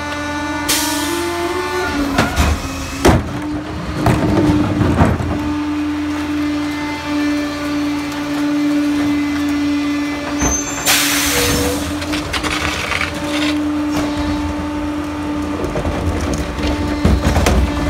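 Pak-Mor rear-loader garbage truck running steadily with its hydraulics working the cart tipper and packer, with bangs and knocks of carts and recyclables. Two short loud blasts of air hiss, about a second in and about eleven seconds in.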